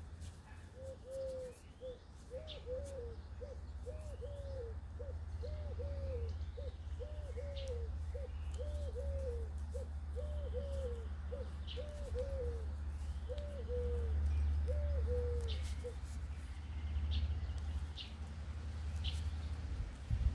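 A pigeon cooing in a long series of repeated low phrases that stops about four seconds before the end, with scattered short chirps of small birds over a steady low rumble.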